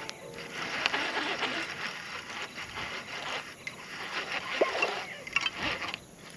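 Baitcasting reel being cranked to bring in a hooked bass, over uneven water noise around the boat.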